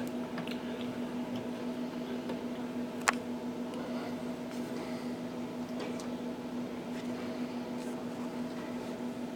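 Tennis ball struck sharply by a racket about three seconds in, with fainter hits and bounces of the ball at intervals, over a steady hum in the tennis hall.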